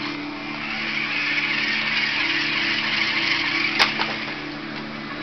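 Toy remote-control car's small electric motor whirring as it drives, swelling and easing, with a sharp knock about four seconds in.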